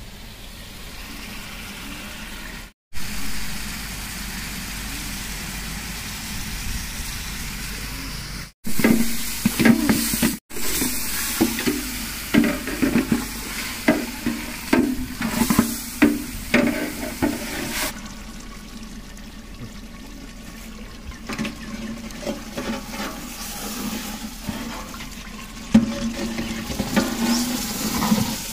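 Chicken masala bubbling and sizzling in a large metal pot over a wood fire, with a metal ladle stirring it. From about a third of the way in there is a run of uneven knocks and scrapes as the ladle strikes the pot.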